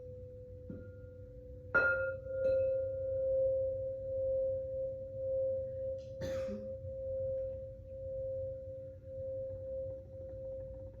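Singing bowl ringing with a steady hum that swells and fades, struck twice just before and after the two-second mark. A brief noisy burst cuts in about six seconds in.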